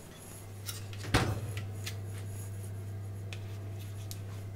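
A single sharp knock about a second in, then light clicks and rustles over a steady low hum.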